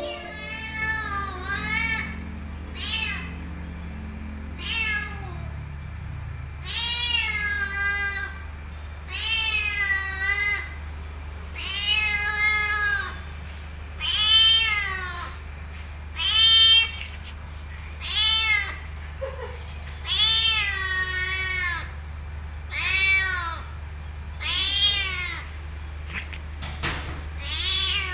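Young tabby cat meowing over and over, more than a dozen calls spaced one to two seconds apart, each rising and then falling in pitch.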